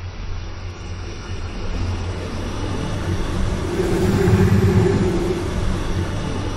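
Designed sci-fi space-storm whoosh: deep rushing wind with a low rumble, swelling to a peak about four and a half seconds in and then easing off.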